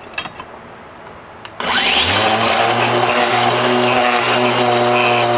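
A few light clicks, then about a second and a half in a Mighty Mill hammer-mill ore crusher switches on, spinning up quickly to a steady, loud run. The hammers are shredding hard drive motor connectors inside, and the mill is not bogging down.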